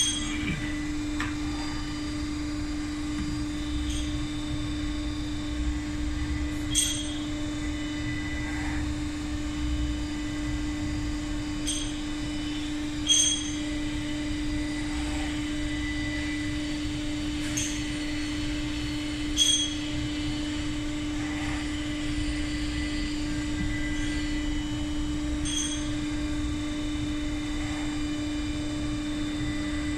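Steady hum of running insertion-press machinery, holding one pitch over a low rumble. Light, sharp metallic clicks with a short ring come at irregular intervals, about eight in all, as pneumatic fittings and hoses are handled.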